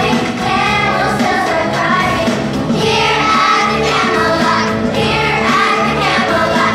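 A group of children singing a song together, with instrumental accompaniment holding steady low notes underneath.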